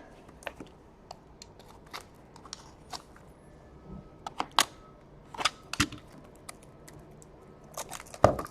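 Scattered light clicks and taps from hockey-card boxes and packaging being handled, with a few louder knocks.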